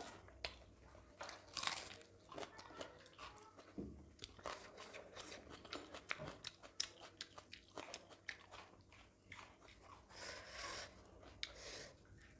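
Faint, close-miked eating sounds of people eating with their hands: chewing and crunching, with many small irregular mouth clicks and smacks.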